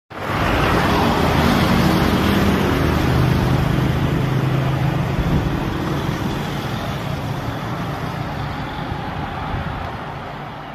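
Road traffic passing close by: engine hum and tyre noise, loudest in the first few seconds as a truck goes by, then slowly fading.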